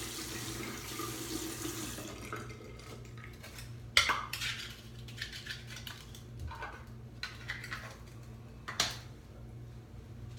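Water running from a tap for about two seconds, then a double-edge safety razor with a RazoRock SLOC open-comb head working in short scraping strokes, with sharp clicks. The two loudest clicks come about four and nine seconds in.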